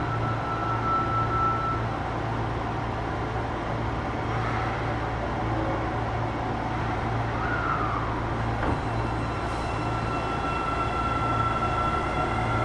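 Steady cabin noise of an Osaka Metro 25 series subway train, with a constant low hum and a thin high whine that drops out about two seconds in and comes back near the end.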